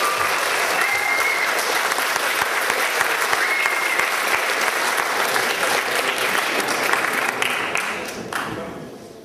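Audience applauding, with a few short whistles or cheers in the first seconds; the applause dies away near the end.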